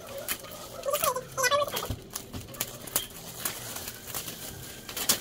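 Gift packaging being handled and opened by hand: crinkling and rustling with scattered sharp clicks.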